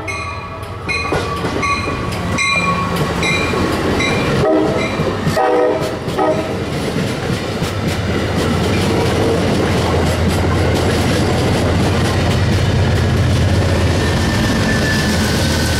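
Amtrak passenger train passing close by. Its horn sounds just before the start and again in a short blast about five seconds in, and evenly repeated ringing comes over the first few seconds. The stainless-steel passenger cars then roll past with a steady rumble and clickety-clack of wheels over the rail joints.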